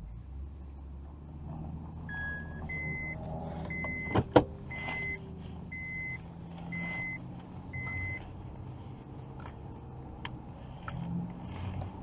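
Pickup truck engine running as the truck pulls away, with a vehicle warning chime giving seven short beeps about once a second. Two sharp knocks about four seconds in are the loudest sound.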